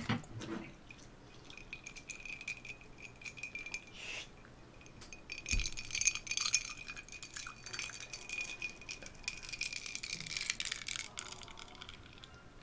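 Cola fizzing in a glass: a fine, steady crackle of bursting bubbles that fades away near the end.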